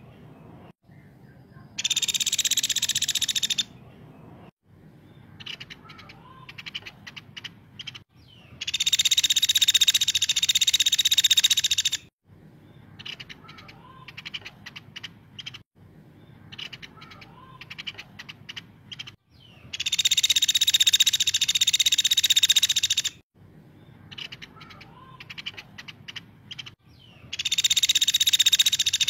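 Caladi (small woodpecker) giving long, rapid, high-pitched trilling calls, each lasting two to four seconds and coming four times, with quieter scattered short ticks in between.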